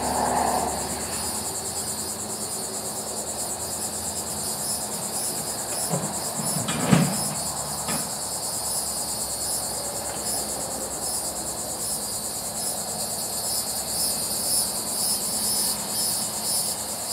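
Steady, high, pulsing insect trilling throughout, with a few short knocks from the grapple work between about six and eight seconds in, the loudest just before seven seconds.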